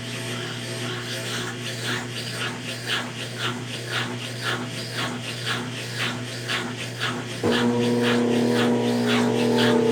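Consul Facilite 10 kg top-loading washing machine in its wash cycle agitating blankets, with water swishing about twice a second over a steady motor hum. About seven and a half seconds in, a louder droning hum starts.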